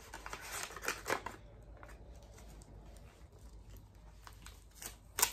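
Brown paper gift wrapping rustling and tearing as a small present is unwrapped by hand, with a couple of sharp crackles near the end.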